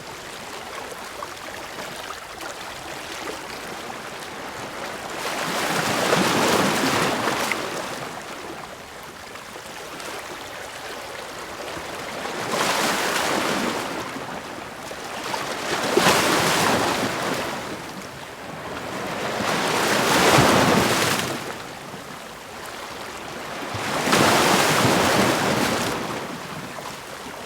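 Sea waves washing and surging, swelling up and falling back five times, roughly every four seconds.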